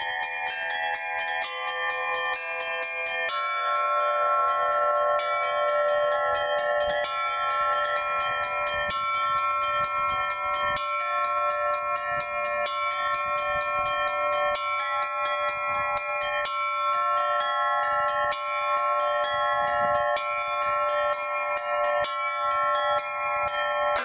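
Russian Orthodox church bells rung by a single bell-ringer in an improvised zvon. Quick, dense strokes on the smaller and middle bells keep many ringing tones sounding at once and overlapping.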